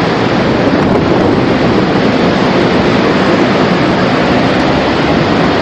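Steady rushing wind noise of a violent EF5 tornado passing close by, a dense, unbroken roar with no letup.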